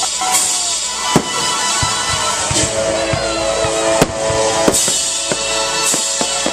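Aerial fireworks shells bursting in a series of sharp bangs, several seconds apart and irregular, over music playing throughout.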